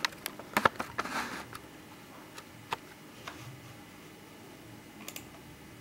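A few light clicks and taps in the first two or three seconds, then quiet room tone.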